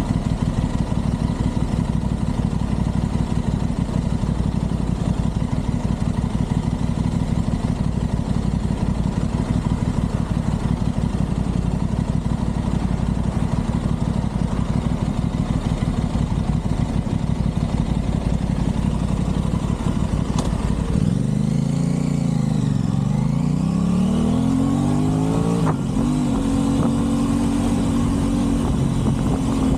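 Aprilia Tuono 660's parallel-twin engine running steadily while riding. About twenty seconds in, its pitch swings up and down several times as it is revved, then it holds a steady higher tone.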